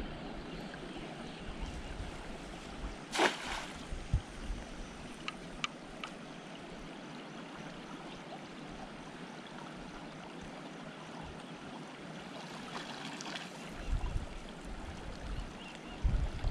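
Steady rush of a small stream, with one short splash about three seconds in as a cast net lands on the water.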